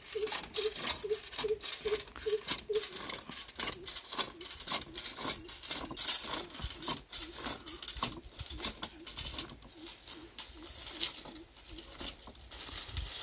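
Metal coconut-tree climbing device rattling and clicking as its frames and grip chain are shifted up the trunk step by step, with a regular run of short notes about three a second, clearest in the first few seconds.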